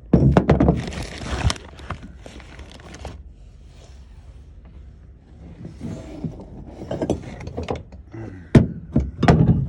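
Metal hand tools clattering and scraping as they are handled and picked through, with a burst of knocks and clinks at the start, a quieter stretch, then sharp clinks near the end.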